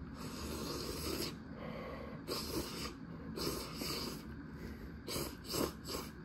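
A person slurping instant cup ramen noodles: a few long, hissy slurps and then a quick run of short slurps near the end.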